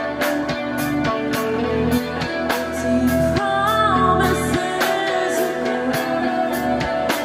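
Live rock band playing: distorted electric guitars, bass guitar and drums, with cymbal hits in a steady beat. A voice sings a wavering line a little past the middle.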